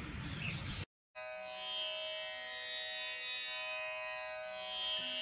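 Instrumental background music with a steady drone under it, starting after a brief silence about a second in.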